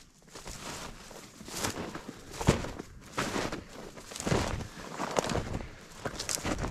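Footsteps pushing through brush and undergrowth, an uneven crunch about once a second.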